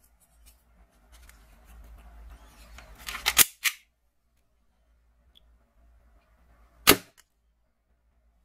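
Toy revolver (M09-2 soft-bullet blaster) being loaded and fired: light rustling as a foam dart is pushed into the barrel, a quick run of loud plastic clicks as the mechanism is worked, then one sharp snap of the shot launching the dart.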